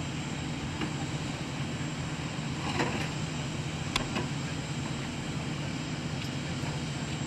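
Vehicle extrication: a steady engine drone runs under sharp metal clanks and cracks from the wrecked minivan's body as its door is pried free. The loudest crack comes about four seconds in.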